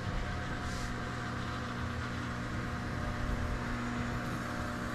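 Lionel 225E pre-war O-gauge steam locomotive running on track, a steady mechanical hum with a low rumble of motor and wheels.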